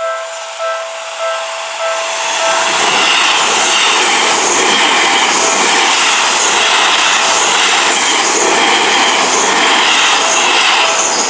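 Electronic warning bell of a Japanese railway level crossing ringing in repeated strokes, a little under two a second. About two seconds in, a Seibu Ikebukuro Line train passes the crossing close by, and the loud rush of its wheels and cars drowns the bell until near the end.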